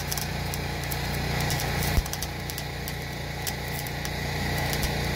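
An engine running steadily under the irregular crackle of an arc welding a seam on heavy steel plate, with one sharp knock about two seconds in.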